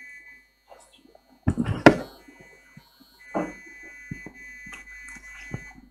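Microphone handling noise: a few bumps and rustles, loudest about two seconds in, with a smaller one about three and a half seconds in. Under them is a faint steady high-pitched electronic tone from the sound system, which drops out early and comes back about three seconds in.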